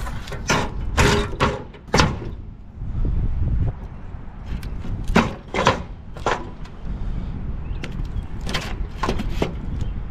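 Heavy patio blocks set down one after another on the plastic-lined steel weight tray of a tow-behind plug aerator: a run of sharp clunks and scrapes of block on block and block on tray, coming in clusters.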